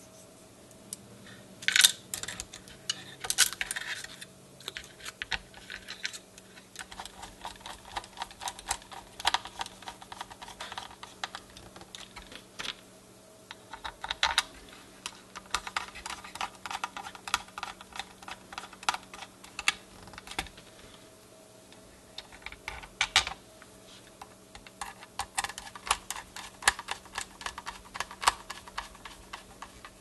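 Irregular small clicks and taps of a screwdriver and small screws on the metal motor bracket of a NuTone door chime base, as the Telechron clock motor is screwed back in place.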